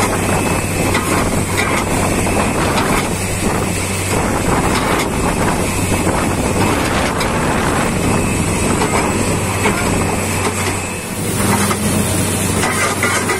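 Truck-mounted borewell drilling rig running steadily with a constant engine hum, while water gushes and splashes out of the finished 450-foot bore and sprays from the rig head. This is the well being blown out and showing a strong water yield.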